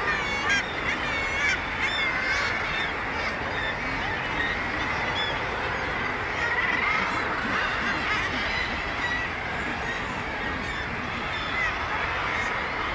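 Seabird colony on sea cliffs: a dense, unbroken chorus of many birds calling at once, short honking, rising and falling calls overlapping over a low steady background.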